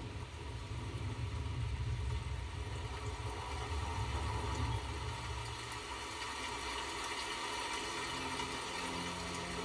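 Low engine-like rumble that holds steady for about five seconds and then fades, over a faint steady hum.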